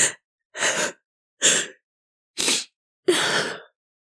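A woman crying in sharp, breathy gasps: five of them, about one every three-quarters of a second, the last one longer.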